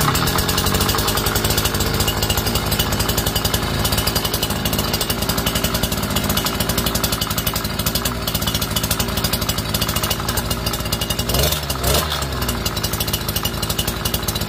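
A brush cutter's small petrol engine catches and runs steadily on the bench with its newly fitted clutch shoes spinning uncovered, no drive shaft attached. This is a test run after the clutch shoe replacement. The engine speed briefly dips and rises about twelve seconds in.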